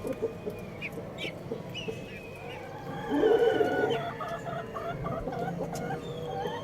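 Chickens clucking and calling over one another, with a louder call about three seconds in and higher chirping calls throughout.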